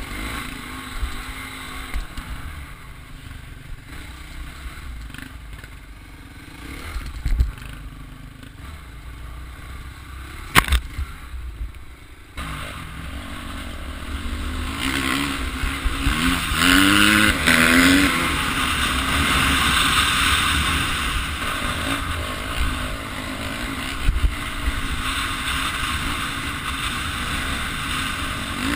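Off-road motorcycle engine running close to a camera mounted on its handlebars, with knocks and clatter from the rough dirt trail. A little past halfway the engine revs up and down, and a rushing wind noise on the microphone comes in.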